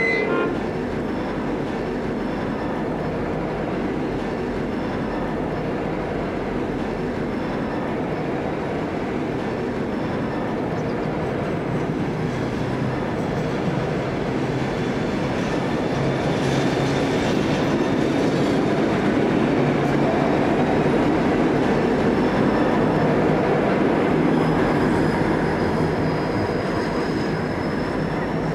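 Two diesel locomotives, a Pacific National G class and BL class, running light engine: a steady diesel engine sound with running noise on the rails. It grows louder about halfway through, and a faint high squeal rises near the end.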